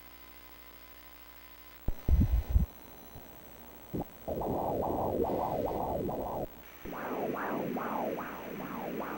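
Ultrasound Doppler playing a fetal heartbeat: rhythmic whooshing pulses, about two and a half a second, with a brief break partway. A few low thumps come shortly before the pulses start.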